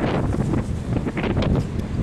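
Wind buffeting the microphone: an uneven, gusty rumble.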